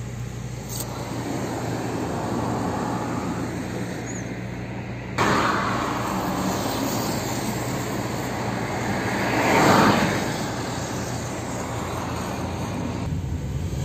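Steady road and engine noise of a moving car, heard from inside the car. The noise steps up suddenly about five seconds in. A passing vehicle swells and fades about ten seconds in.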